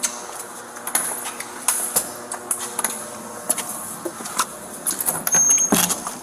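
Body-worn camera scraping and knocking against the officer's uniform as he walks, with scattered footsteps and gear clicks. Near the end a short high beep, then the clunk of a heavy metal door being pushed open.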